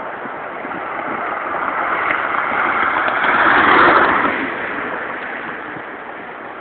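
Airbus A380 jet engines, a steady rushing noise that swells to its loudest a little past the middle and then fades as the airliner passes.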